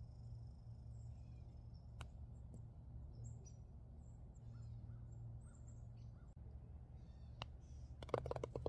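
Faint birds chirping here and there over a steady low hum, with a sharp click about two seconds in and a short cluster of clicks near the end.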